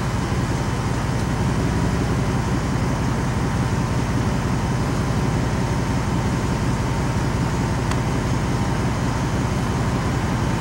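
Steady low rumble of a vehicle running at idle, heard from inside the cabin, with a faint steady hum over it.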